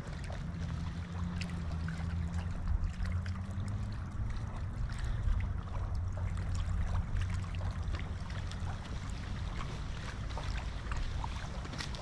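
Wind buffeting the microphone with a steady low rumble, over water lapping and splashing at a riverbank in fast current. A faint hum rises slightly in pitch during the first few seconds.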